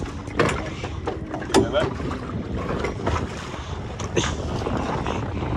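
Steady low rumble of wind and water on a boat at sea, with several short sharp knocks.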